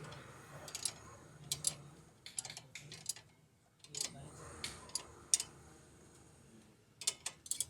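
Irregular sharp clicks and light taps, a dozen or so, some in quick clusters of two or three, over a faint low hum.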